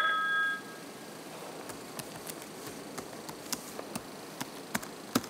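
An electronic phone ring tone sounds at the start and stops about half a second in. Then computer keyboard keys click irregularly as a word is typed, with one sharper click near the end.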